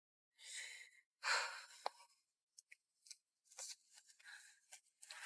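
Two faint breaths, one about half a second in and one a little past a second in, followed by a small click and a few faint ticks.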